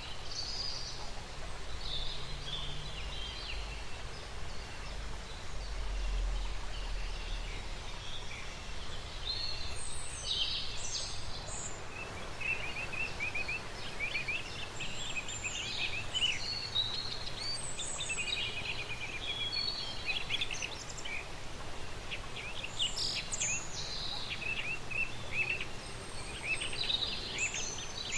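Outdoor nature ambience of songbirds chirping and calling over a steady background hiss, the calls sparse at first and busier from about halfway in.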